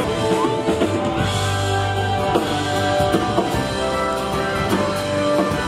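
Background music with drums and guitar and held notes over a steady bass.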